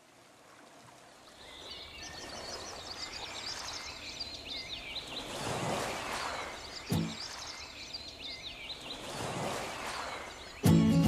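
Ocean surf washing onto a beach in two slow swells, with small birds chirping high and fast over it. There is a short thump about seven seconds in, and music starts abruptly near the end.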